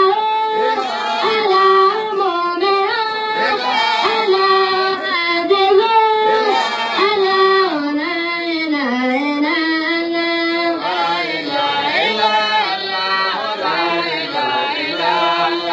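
A single voice singing a slow melody that slides between long held notes.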